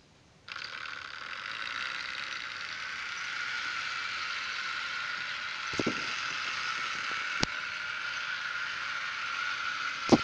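Model electric locomotive (a CC 40101) switched on about half a second in, its small motor running with a steady whirring rattle of gears and wheels as it travels along the track. A few sharp clicks break in, about 6, 7 and 10 seconds in.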